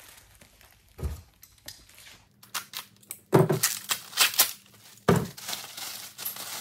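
Plastic packaging wrap crinkling and tearing as it is pulled off a unicycle saddle, with several dull thumps from the handling; one thump about a second in, the crinkling starting about halfway.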